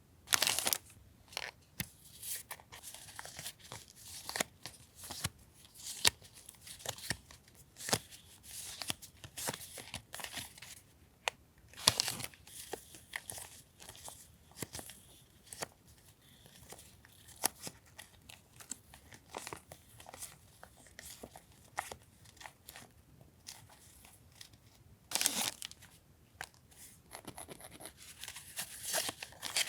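Paper and plastic stationery packaging being handled: irregular crinkling, rustling and tearing with small sharp clicks, in short bursts.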